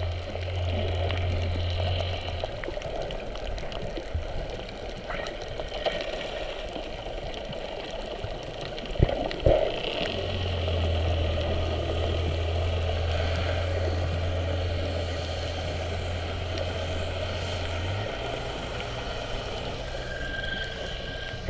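Muffled underwater sound picked up by a submerged camera: a steady low hum that drops out about two seconds in and comes back about halfway through, with a couple of sharp knocks just before it returns.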